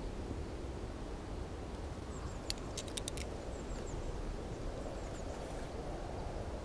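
Outdoor ambience: a steady low rumble, with a quick run of five or six sharp clicks about two and a half seconds in and a few faint, short high chirps.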